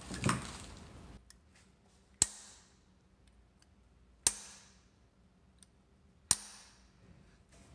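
Hammer striking a punch held against a sludge plug in a Jaguar E-Type crankshaft web, staking it so it cannot back out. Three sharp metallic strikes about two seconds apart, each ringing briefly.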